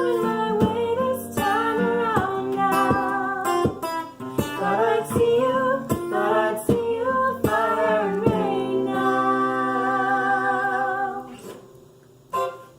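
A solo voice singing to a strummed acoustic guitar. It ends on a long held note with vibrato that fades out about eleven seconds in, followed by a single knock near the end.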